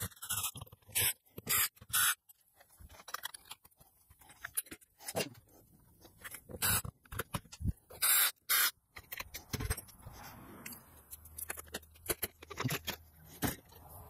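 A cordless drill backing screws out of a trailer door handle in short spurts, mixed with clicks, knocks and scraping of the metal lock hardware as it is worked loose.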